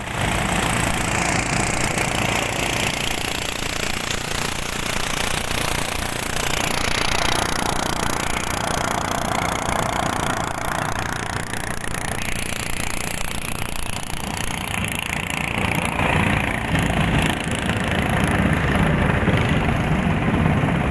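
Small boat engine running steadily with a fast, rough pulse, growing a little louder and deeper over the last few seconds.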